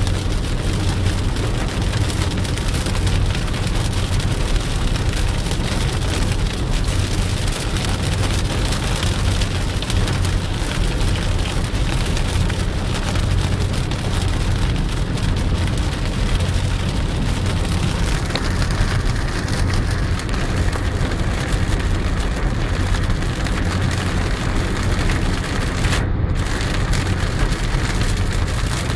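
Steady heavy rain hissing, with a constant low vehicle rumble underneath; the sound cuts out for an instant about 26 seconds in.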